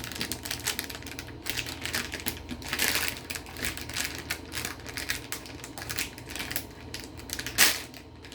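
Rapid, irregular clicking and rustling of toy packaging being handled and opened, with one sharper knock near the end.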